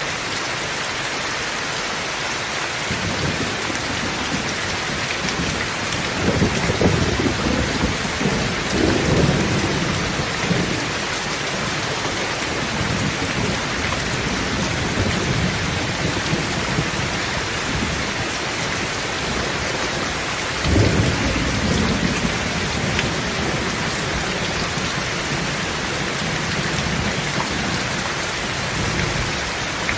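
Steady heavy rain with rolling thunder: low rumbles build from a few seconds in and peak twice, and a sharper clap breaks about two-thirds of the way through, then rumbles away.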